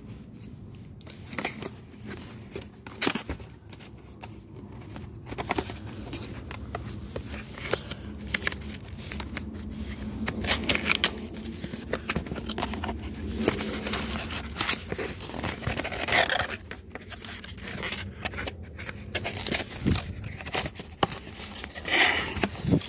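A cardboard box being opened by hand: the seal sticker and tape peeled and torn, with irregular scraping, rubbing and rustling of cardboard and packaging, and a few louder scrapes and knocks in the second half.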